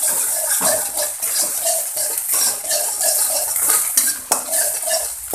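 A metal spatula scrapes and clacks against a steel wok, stirring and breaking up eggs frying in hot oil, with now and then a sharper clack. A steady sizzle of the frying egg runs underneath.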